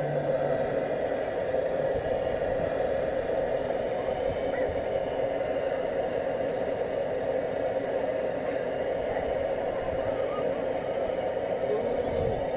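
Pressurised blowtorch burning with a steady roar, heating the glow head of a Lanz Bulldog tractor before starting.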